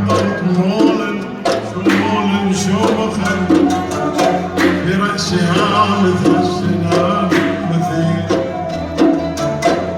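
Devotional khatm chant sung by a male voice over steady hand-percussion beats.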